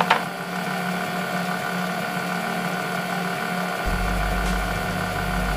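KitchenAid stand mixer running steadily, its beater churning soft cookie batter of creamed butter, sugar and eggs in a glass bowl. A short click comes right at the start, and a deep rumble joins about four seconds in.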